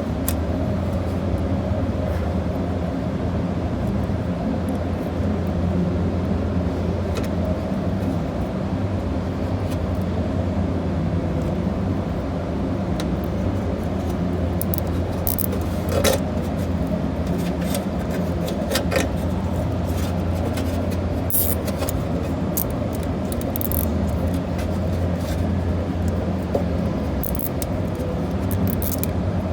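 A steady low mechanical hum, with scattered short sharp clicks in the second half from zip ties being worked and trimmed with snips. The strongest clicks come about 16 and 19 seconds in.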